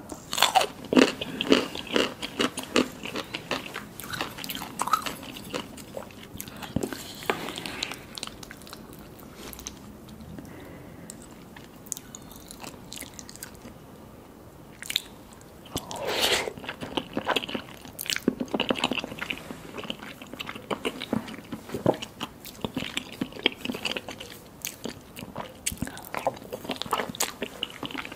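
Close-miked eating: crunchy bites and wet chewing in bursts, with a quieter stretch of softer chewing around the middle.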